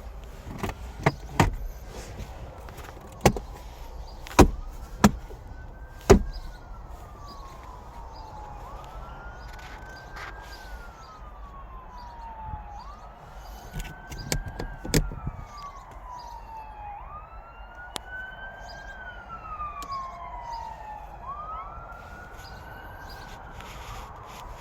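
Emergency-vehicle siren wailing, each cycle rising quickly and falling slowly, repeating about every four seconds from a few seconds in. Several sharp knocks, louder than the siren, come in the first six seconds and again about halfway through.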